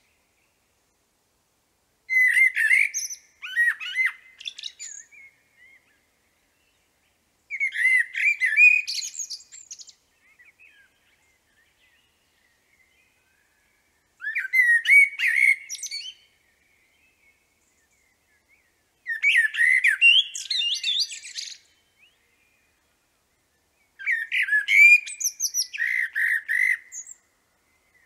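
Eurasian blackbird singing: five separate phrases a few seconds apart, each a low fluting warble with high squeaky twittering.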